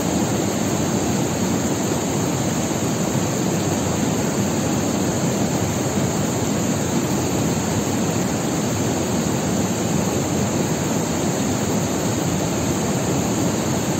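Steady rushing of a mountain river or stream, an even roar of water with no breaks.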